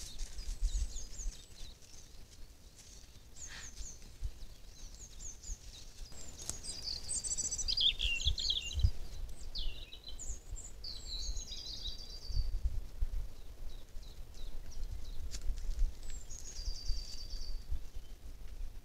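Wild songbirds singing: repeated short, high-pitched phrases of chirps and trills, several times over, above a low steady rumble of outdoor noise.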